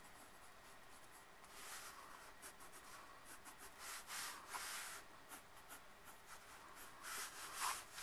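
Pencil scratching across paper in a series of faint strokes as lines are drawn, the longer strokes coming about a second and a half in, around four seconds in, and near the end.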